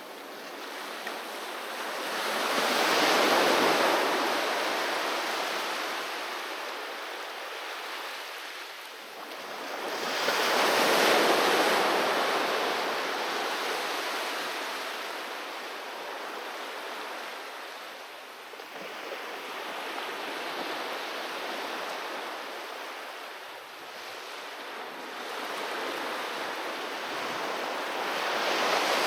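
Waves breaking on a beach: each swell builds to a loud crash and washes back, with peaks about 3 s in, about 11 s in and near the end, and a gentler, steadier wash in between.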